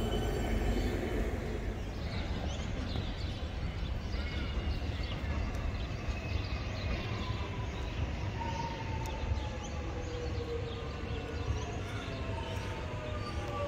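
A train approaching in the distance: a steady low rumble with faint whining tones that slowly fall in pitch.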